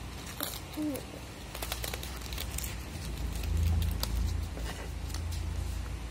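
Handling noises from paper crafting: scattered light clicks and rustles of paper being worked, with a short low rumble about halfway through.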